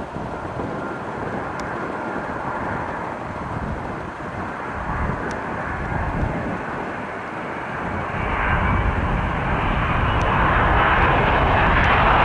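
Boeing 777 jet airliner on final approach with its landing gear down, its engine noise growing louder as it draws near, and a steady engine whine coming in near the end.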